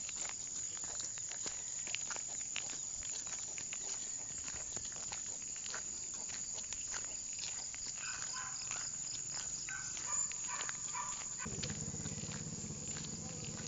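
A steady high insect chorus, like crickets trilling, with irregular light footsteps on a concrete road.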